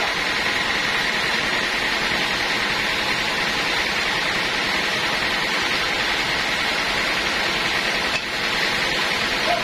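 Sawmill band saw running: a steady loud noise with a thin high hum, dipping briefly about eight seconds in.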